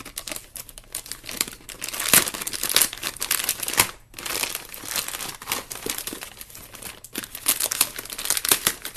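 Plastic mailing bag crinkling and rustling in irregular bursts as hands grip and turn it, with a brief lull about four seconds in.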